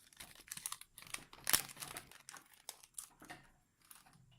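Foil wrapper of a Yu-Gi-Oh booster pack crinkling and crackling as it is handled and opened. Quick irregular crackles, the loudest about a second and a half in.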